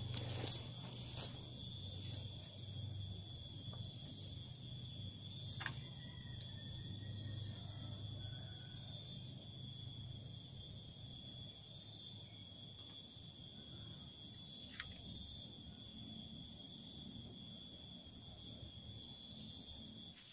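Faint, steady insect trilling, an even high-pitched drone, with a low hum beneath and a few light clicks.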